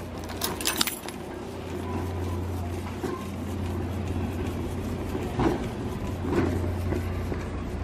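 Metal shopping cart being pushed along a store aisle: a steady low rolling rumble from the wheels, with a few sharp rattles of the wire basket about half a second in and fainter knocks later.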